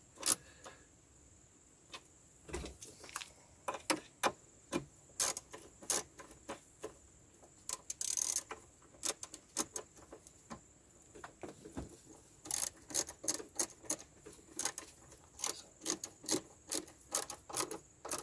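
Hand tools and small metal parts clicking and clinking while fasteners are fitted into the excavator cab's air-conditioning housing: irregular sharp clicks, coming faster near the end, with a short scrape about eight seconds in.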